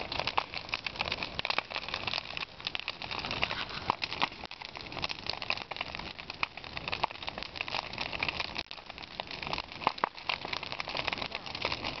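Large bonfire of dry brush and branches burning, with dense, continuous crackling and sharp pops.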